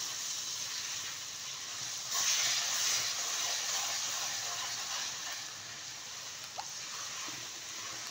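Semolina and milk cream frying in ghee in a pan: a steady sizzle that gets louder about two seconds in.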